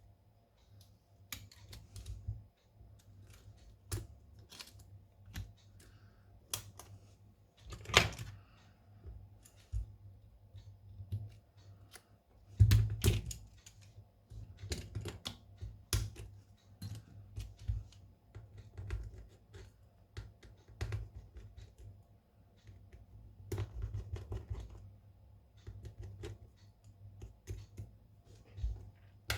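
Irregular small clicks and taps of hand tools and parts being handled during a smartphone glass repair, with a sharper knock about eight seconds in and a louder cluster around thirteen seconds, over a faint low hum.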